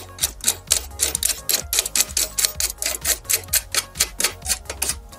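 Background music with a fast, clicky percussion beat, about four to five clicks a second, over a steady bass line.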